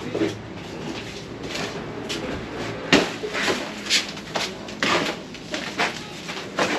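Irregular knocks, clicks and scrapes of things being shifted about in debris, one or two a second, the sharpest about three seconds in.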